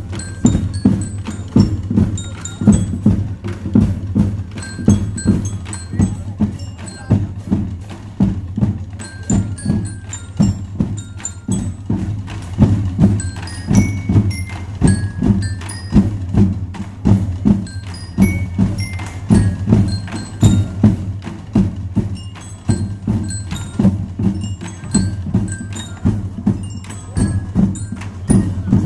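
Marching band playing: bass and snare drums beat a steady march rhythm while bell lyres (marching glockenspiels) play a bright melody over it.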